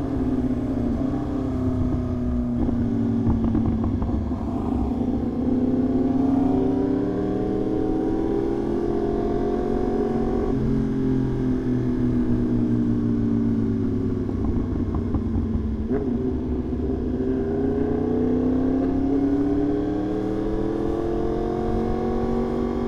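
Yamaha R1's inline-four engine running at highway cruise, its pitch drifting slowly up and down several times as the throttle eases on and off.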